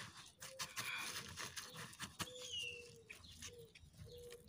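Hands pressing and packing wet cement mortar against plastic sheeting and wire mesh in a wooden mold: faint scraping and crinkling with many small clicks. A single short bird chirp, falling in pitch, comes about two seconds in.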